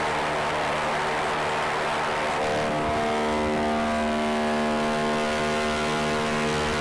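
Spinning twin rotors of the Ingenuity Mars helicopter: a steady whirring hum over a rushing noise, with the hum growing fuller and stronger about two and a half seconds in.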